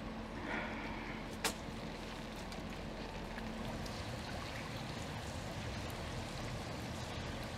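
Steady outdoor background noise with a faint hum that fades out partway through, broken by one sharp click about a second and a half in.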